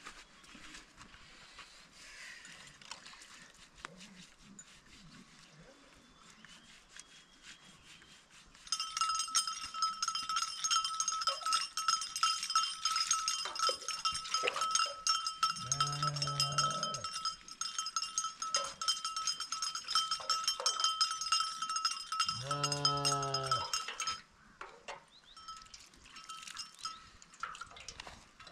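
Livestock bells clank and ring steadily and densely as a sheep flock moves. The ringing starts about a third of the way in and stops shortly before the end. Two drawn-out low sheep bleats sound over the bells, one about halfway and one near where the ringing stops.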